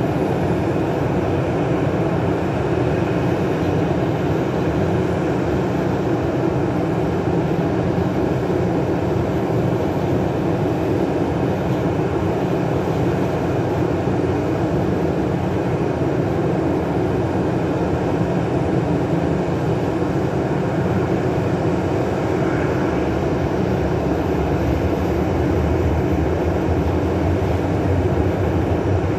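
Boeing 737-800's CFM56-7B turbofan engines running steadily at ground idle. The noise is loud and continuous, and a low rumble swells slightly near the end.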